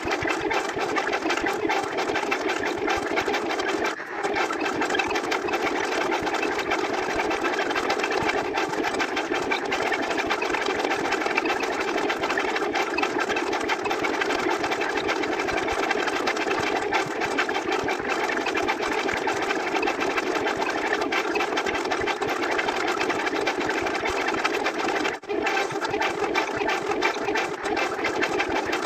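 A steady, dense machine-like buzzing drone, with brief dips about four seconds in and again near the end.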